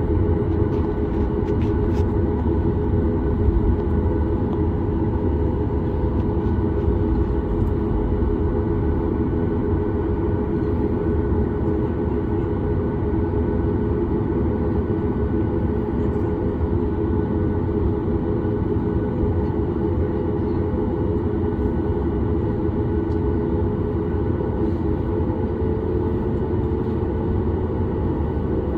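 Jet airliner's cabin noise on the ground: a steady, even rumble from the engines at idle with a few steady hums above it.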